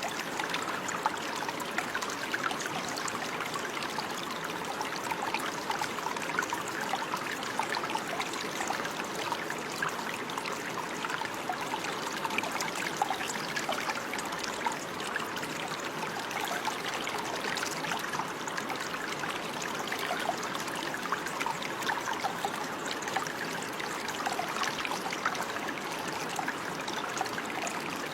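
Running water, a small stream trickling and babbling, with a steady rush full of little splashes and drips.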